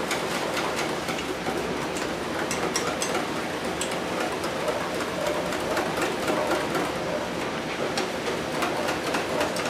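Whisk beating spätzle batter in a stainless steel bowl: steady, rapid clicking and scraping against the bowl.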